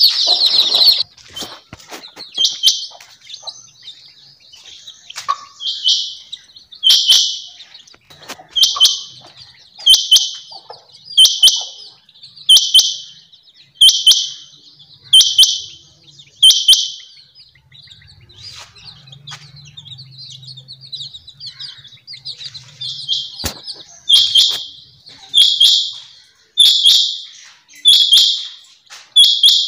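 Caged quail calling: a sharp, high call repeated about every second and a half. About ten calls come in a row, then a pause of several seconds, then another run of about five.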